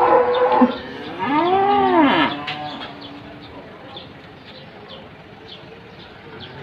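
Cattle mooing: a short loud call, then about a second later a longer moo that rises and falls in pitch.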